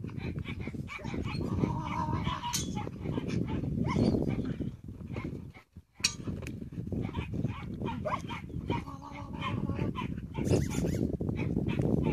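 Dog barking repeatedly over a dense low rumble.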